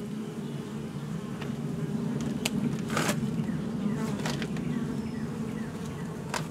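Honey bees buzzing in a steady hum over an open nuc hive, with a few sharp clicks as the wooden frames are handled, the biggest about three seconds in.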